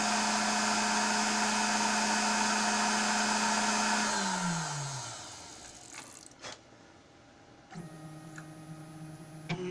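CNC router spindle running steadily with a hissing motor whine, then switched off about four seconds in and winding down, its pitch falling as it fades. A couple of clicks and a faint low hum follow.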